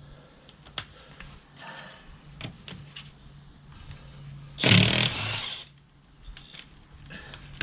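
Small metal clinks of tools and sockets, then a short burst of a power tool, about a second long, around the middle.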